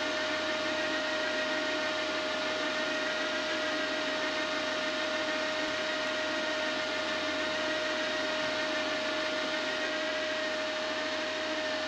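Hynade MTS155 FX flux-core welder's wire-feed motor running steadily with the gun trigger held, pushing wire through the gun: a steady whine.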